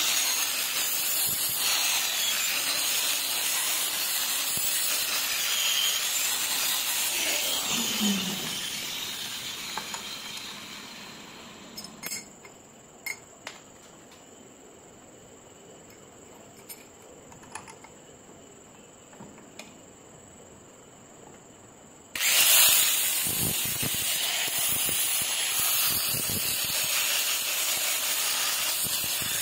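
Angle grinder grinding the steel comb blade of a vintage animal hair clipper, a steady hissing grind. About eight seconds in it winds down and stops, leaving a quiet stretch with a few light knocks. About 22 seconds in it starts again suddenly and keeps grinding.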